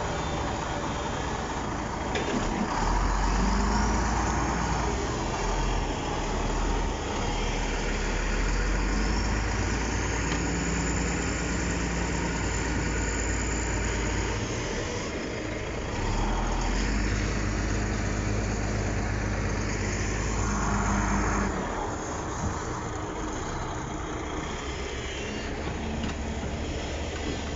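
Heavy diesel engines of a Shantui SD16 crawler bulldozer and an excavator running under load, a steady deep rumble that swells and eases several times as the machines push against the stump.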